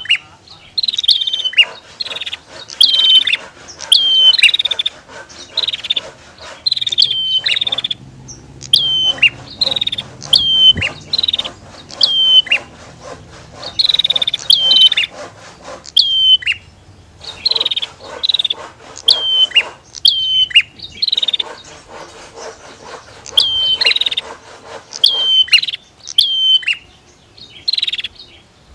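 Prinias (prenjak) calling: sharp, high chirps repeated about once or twice a second, each dropping in pitch, with a harsh buzzing trill running under some phrases.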